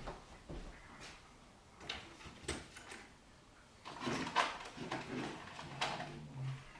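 Scattered clicks and knocks of small tools being rummaged through and handled, with a burst of clattering about four seconds in, in a search for an Allen key.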